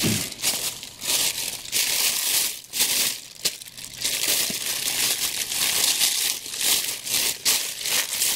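Thin plastic bag crinkling and rustling in irregular bursts as hands work it off a statue's small ornate chair.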